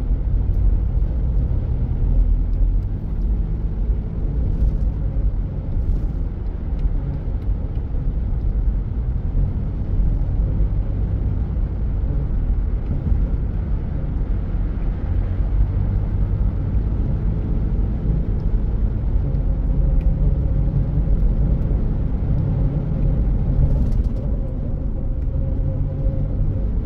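Steady low rumble of a car's tyres and engine at cruising speed, heard from inside the cabin while driving through a road tunnel. A faint steady hum joins in around two-thirds of the way through.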